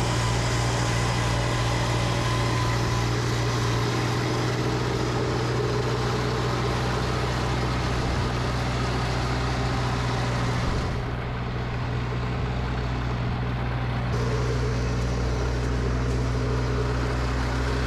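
Snowblower engine running steadily under load, with a constant low hum, as it throws heavy wet snow. The rushing noise drops briefly about two-thirds of the way through.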